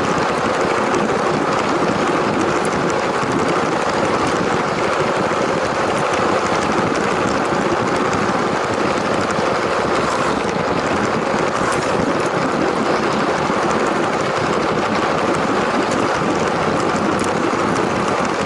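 LEGO train's small electric motor and wheels running steadily along plastic track, an even, unbroken running noise.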